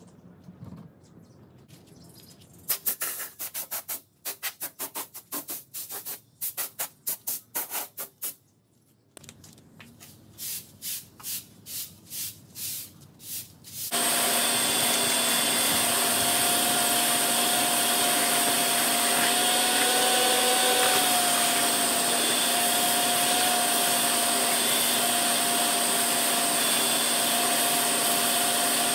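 About ten seconds of loud, quick rhythmic strokes, a few a second, with a short pause in the middle. Then a shop vacuum switches on suddenly and runs steadily with a constant whine, sucking up wood shavings from the floor.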